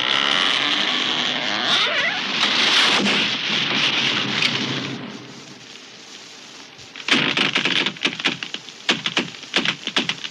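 Tree crashing down: a dense crash of breaking branches and rustling foliage with some creaking, dying away about five seconds in, then a run of sharp wood cracks and snaps.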